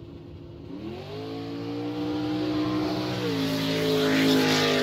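Engine revving: the pitch climbs about a second in and holds high, then settles slightly lower after about three seconds, with a rising hiss near the end.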